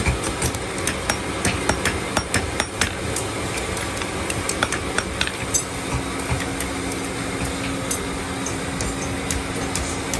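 Hand hammer striking red-hot iron on a small anvil stake as a wiring hook is forged: quick ringing strikes, about three a second, thinning out to scattered blows after about three seconds, over a steady background hum.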